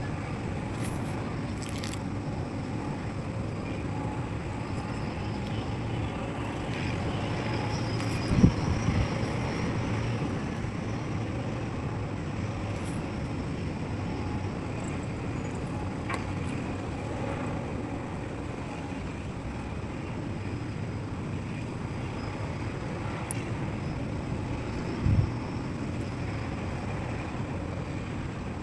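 Excavator's diesel engine running steadily at a work site, a low rumble, with two heavy thumps, one about eight seconds in and one near the end.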